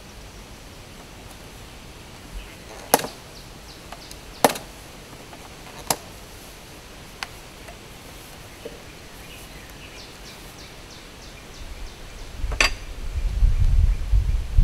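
Sharp metal clicks and taps, five of them spread over about ten seconds, as a staple is pried out of a wooden bee package to free the queen cage. A loud low rumble comes in near the end.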